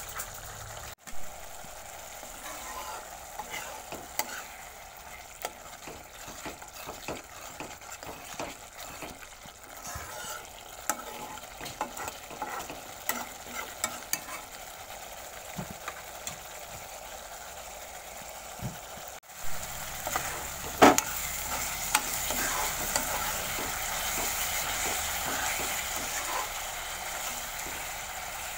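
Thick onion, tomato and ground-spice masala sizzling as it fries in mustard oil, with a spoon scraping and stirring it round the pan in many small clicks and scrapes. The paste is being fried down until cooked through, and the sizzle is louder in the last third.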